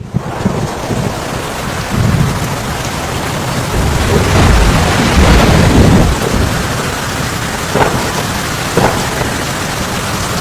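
Loud, steady rushing noise with a deep rumble that swells and fades about four to six seconds in.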